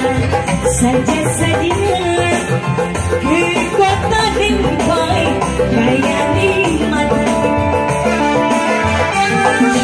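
Live dangdut band playing loudly: kendang hand drums, electronic keyboard and electric guitar, with a woman singing into a microphone.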